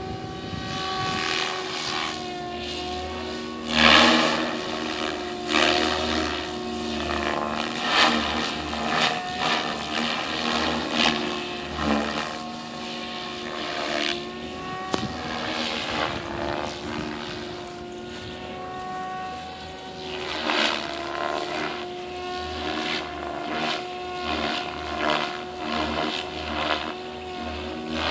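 Radio-controlled 700-size Goblin helicopter in flight: a steady rotor and drive whine that shifts a little in pitch, with repeated louder swooshes from the rotor blades every second or two as it manoeuvres.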